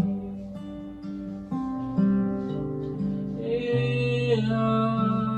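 Acoustic guitar playing sustained chords as an instrumental interlude of a worship song, with a voice coming in over it about three and a half seconds in.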